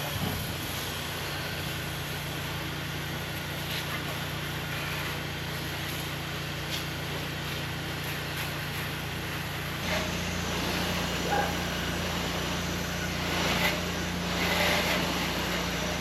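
Pressure washer engine running steadily, shifting to a slightly higher and louder pitch about ten seconds in.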